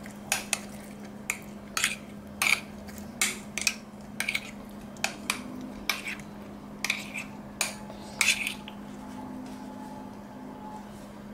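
A spoon stirring thick fruit custard in a glass bowl, clinking against the glass at an uneven pace, about one or two clinks a second.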